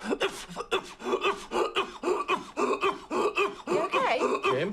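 A man coughing in an unbroken fit, several short coughs a second, with strained, gasping voice sounds between them.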